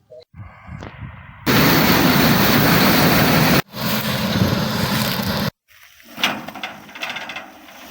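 FM World 102 hp combine harvester running loud, heard in short edited shots: two stretches of dense, steady machine noise of about two seconds each, each cut off abruptly, with quieter spells before and after.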